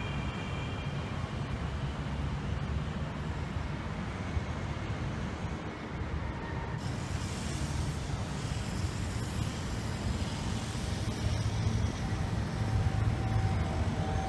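Street ambience with steady traffic noise; about seven seconds in the background shifts and a brighter hiss joins it.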